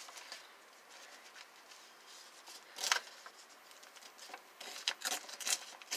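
Paper rustling and crinkling as a sheet is lined up and pressed under a ruler, ready to be torn along its edge, with one sharp crinkle or tap about three seconds in and a quick cluster of rustles near the end.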